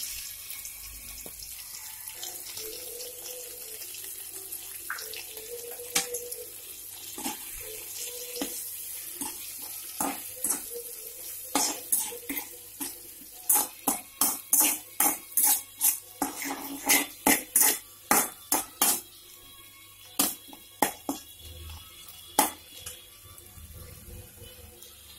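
Mutton and tomato masala sizzling in an oiled pan with a steady hiss. From about ten seconds in, a metal spatula stirs it, clicking and scraping against the pan in quick strokes that are thickest in the middle of the stretch.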